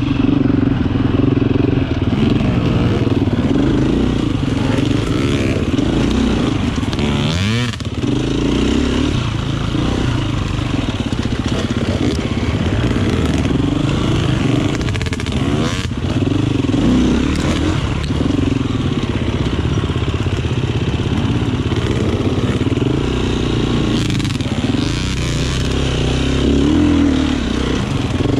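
GAS GAS EC 350F enduro motorcycle's single-cylinder four-stroke engine running at low revs, its pitch rising and falling with the throttle, with a quick blip of revs about seven and a half seconds in.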